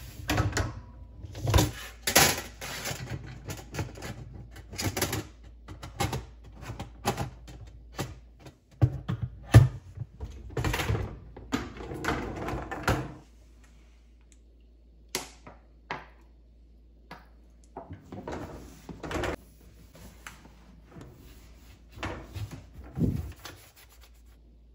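Handling noises: an irregular string of knocks, clicks and rubbing scrapes, busy for the first dozen seconds and then sparser, with a few louder knocks.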